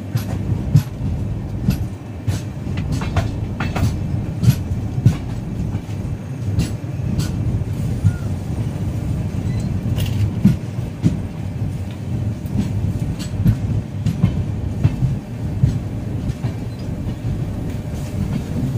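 Passenger train coaches running along the track, heard from the doorway of a moving coach: a steady low rumble with frequent irregular clacks and knocks as the wheels pass over the track.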